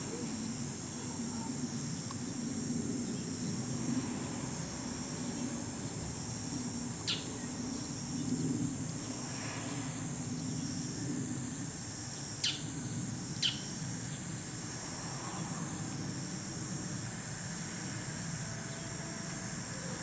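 Bull-headed shrike giving three short, sharp calls that sweep down in pitch: one about a third of the way in, then two a second apart past the middle. A steady high-pitched insect buzz and a low rumble run underneath.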